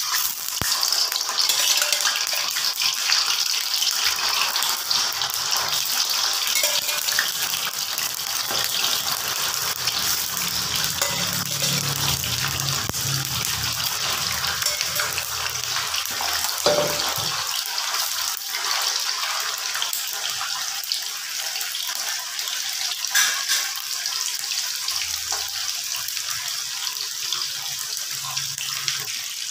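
Cubes of tofu deep-frying in hot oil in a wok: a steady, dense sizzle with constant crackling, easing a little in loudness toward the end.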